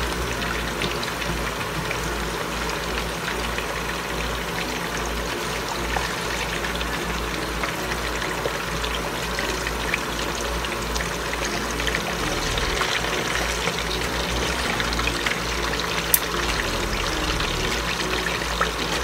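Marinated chicken pieces shallow-frying in hot oil in a nonstick wok: a steady sizzle with small pops and crackles throughout. One sharp click about sixteen seconds in.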